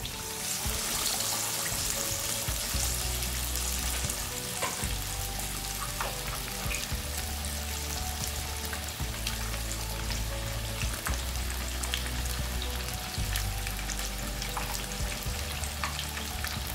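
Masala-marinated fish deep-frying in hot oil in a non-stick kadhai: a steady sizzle with scattered pops and crackles, loudest in the first couple of seconds after the fish goes into the oil.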